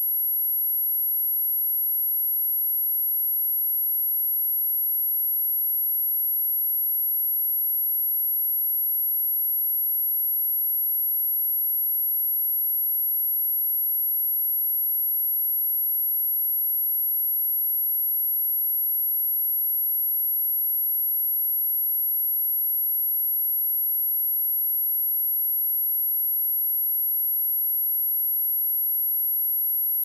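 A steady, high-pitched 11,568 Hz pure sine-wave test tone, one unbroken pitch at a constant level.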